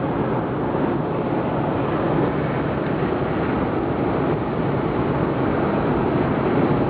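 Steady road noise inside a moving car's cabin: engine hum, tyres and wind at highway speed, even throughout.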